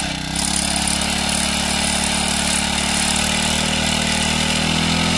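Small petrol engine of a portable power sprayer running steadily after being started, with a brief dip in level just after the start before it settles to an even pace.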